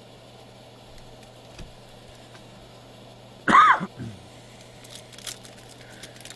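A faint steady hum, broken about three and a half seconds in by one short, sharp sound lasting under half a second. Near the end, light crinkling of a trading-card pack's foil wrapper as it is handled for opening.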